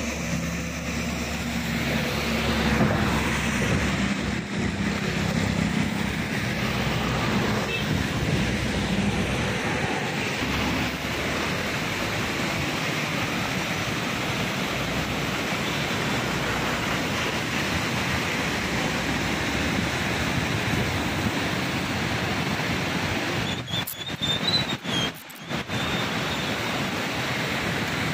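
Steady rushing roar of a swollen, muddy river in monsoon flood, churning over a step below the bridge. A road vehicle is heard passing in the first few seconds, and the sound briefly drops out twice near the end.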